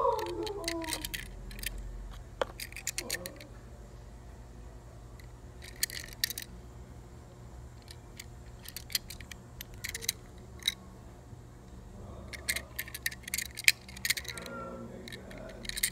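Small clicks and taps from a 1/64-scale Tomica die-cast Toyota C-HR being turned over and handled in the fingers. They come in several short clusters, over a low steady hum.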